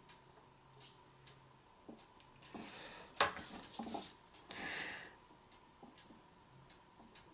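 Palette knife swiping through wet acrylic pour paint: a few soft scraping strokes about midway, with one sharp click among them, over faint scattered ticks.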